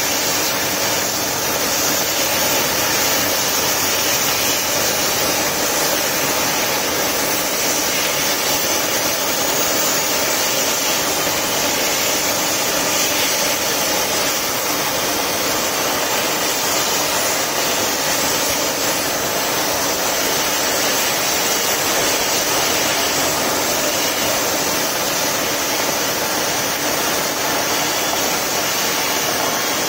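Homemade turbo stove (a barrel stove fitted with a turbocharger) running with a steady, loud rushing hiss like a small jet engine.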